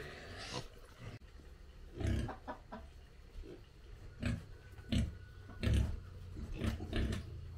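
Small black pigs grunting: a run of short, low grunts starting about two seconds in.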